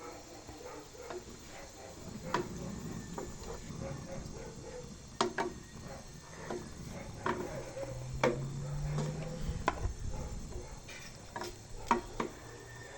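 Scattered light clicks and knocks at irregular intervals, with a brief low steady hum a little past the middle.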